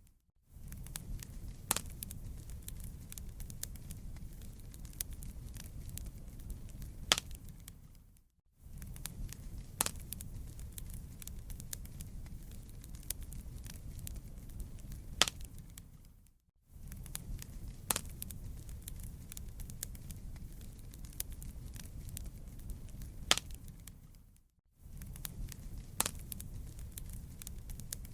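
Wood fire crackling: a steady low rumble of the flames with many sharp pops and snaps, a handful louder than the rest. About every eight seconds the sound fades out to a moment of silence and comes straight back.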